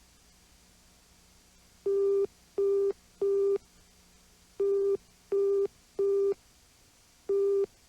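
Electronic beeping: one steady pitched tone sounding in groups of three short beeps, three groups in all, the first starting about two seconds in.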